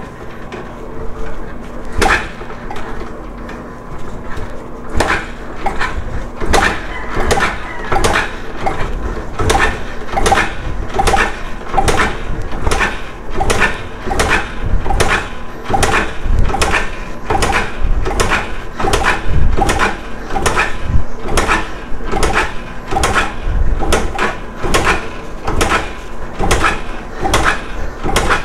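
Yamaha YBR125 single-cylinder engine being turned over again and again for a wet compression test, with oil in the cylinder and a compression gauge in the spark plug hole. It gives a sharp mechanical knock on each stroke, a few at first, then steady at about two a second.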